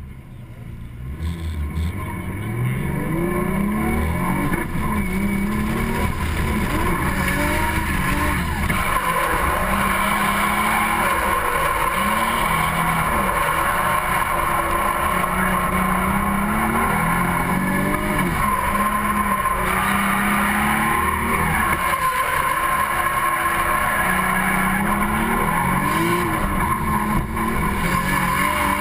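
Drift car's engine, heard from a camera mounted on the car's body, revving up and down again and again as it builds speed and drifts. From about eight seconds in, the tyres squeal steadily as they slide.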